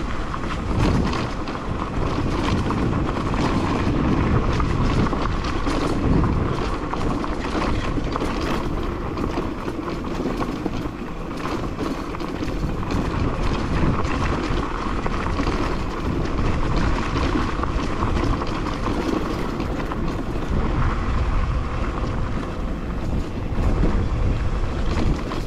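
Crossfire HJ250 dirt bike engine running under way on a rough dirt trail, its note rising and falling a little with the throttle, mixed with wind buffeting the microphone.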